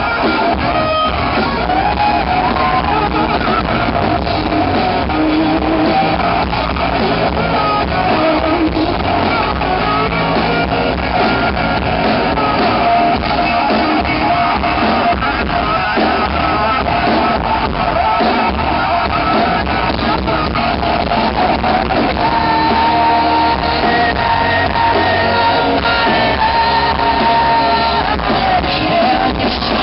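Live rock band playing a loud song, with electric guitars and a male voice singing.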